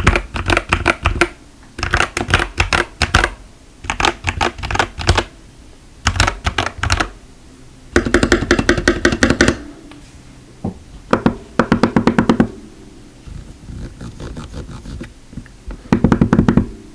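Typing on an Epomaker TH80 mechanical keyboard with Gateron Pro Red linear switches: rapid bursts of key clacks, about eight runs separated by short pauses.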